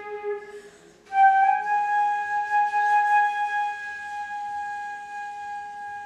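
Concert flute playing: a lower note dies away, then after a short breath a long high note is held, slowly fading.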